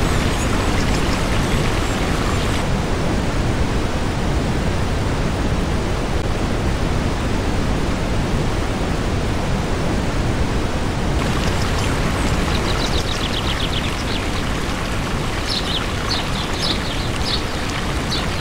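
Steady rushing of a tall waterfall plunging into a pool, with a few short high chirps in the last few seconds.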